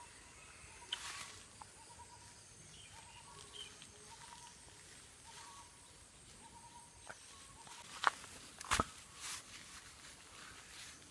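Quiet outdoor ambience with a few sharp rustles or steps, the loudest around eight to nine seconds in, and faint short calls at one pitch scattered throughout.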